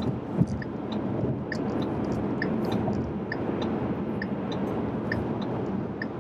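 Steady tyre, road and engine noise inside the cabin of a 2015 Ford Mustang EcoBoost cruising at highway speed. A short thump about half a second in, and a soft tick repeating a little faster than once a second.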